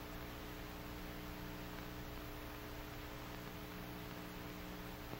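Faint steady electrical hum under an even hiss, the background noise of an old film soundtrack.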